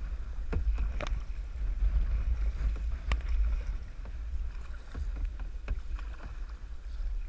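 Kayak paddles dipping and splashing in river water, with scattered sharp knocks and splashes, over a loud low rumble of wind buffeting the action-camera microphone.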